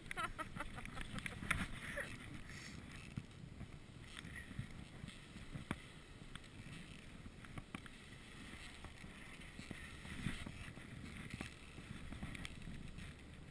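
Skis and poles shuffling and crunching through deep powder snow, with irregular soft clicks and rustling.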